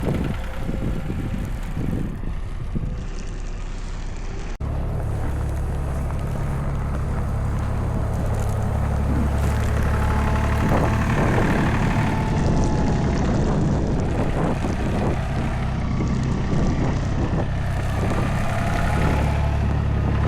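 Storm wind buffeting the microphone as a heavy low rumble, over city street traffic. The sound changes abruptly and gets louder about four and a half seconds in.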